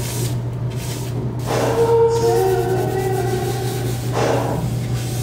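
Background music with sung notes held through the middle, over a steady low hum.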